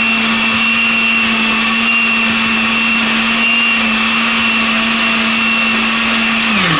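Countertop blender running loudly at a steady speed, blending avocado, milk and sugar into a thick smoothie, with a steady high whine over the motor hum. Near the end it is switched off and winds down.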